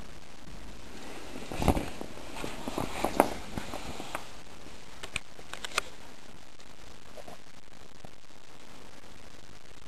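Handling noise from a camera being moved: a run of clicks, knocks and rustles over a steady hiss. The loudest are a thump nearly two seconds in and a sharp knock about three seconds in, followed by a few sharp clicks around five seconds.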